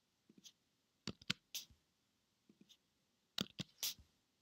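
Scattered computer keyboard keystrokes and clicks in small groups of two or three, as short edits are typed into code.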